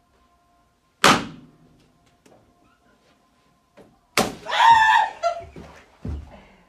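A balloon pops about a second in. About three seconds later a second balloon pops, followed by a person's short high-pitched cry. A dull thud comes near the end.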